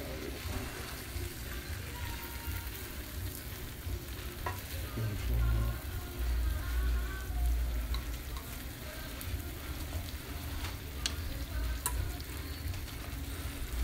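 Egg-white omelet frying in a nonstick skillet, a steady sizzle, while a slotted spatula scrapes and clicks against the pan as the omelet is folded in half over its filling. A few low bumps come about halfway through.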